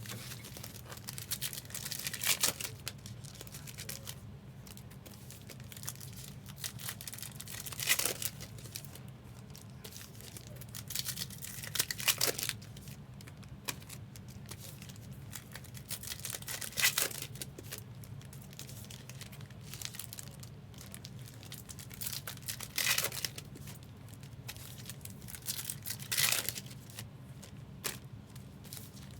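Trading card pack wrappers being torn open and crinkled, with about six sharp rips a few seconds apart and softer rustling between them. A steady low hum runs underneath.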